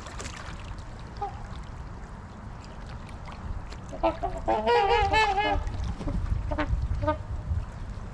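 Waterfowl honking: a few short honks, then a longer wavering run of honks about halfway through, then a couple more short calls, over a low steady rumble.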